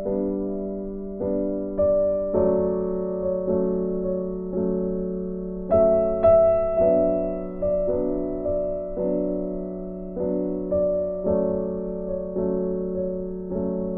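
Background music: slow, gentle piano or electric piano, notes and chords struck about every half second to second and left to fade.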